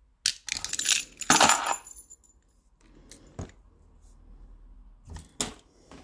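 ERA 975 five-lever padlock opening under the pick: a loud burst of metal clicking and rattling with a brief high metallic ring as the bolt throws and the shackle springs open, followed by a few single clicks of the lock and tools being handled.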